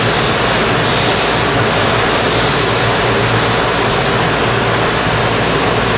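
Lelo BBDD brush sanding machine running, its sanding brush spinning: a steady rushing noise over a low hum.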